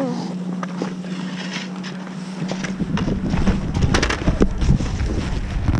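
Steady mechanical hum of chairlift machinery. About three seconds in, wind starts buffeting the microphone, with scattered knocks and clatter of ski gear being handled.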